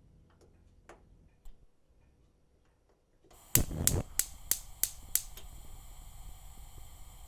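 Gas stove burner being lit: a couple of faint ticks, then gas starts to hiss and the electric igniter clicks about six times in quick succession. After the clicks stop, the burning gas keeps up a steady hiss.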